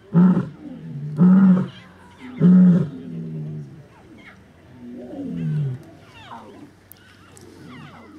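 Lion roaring: a series of deep calls, three loud ones about a second apart, then a weaker call about five seconds in that falls in pitch.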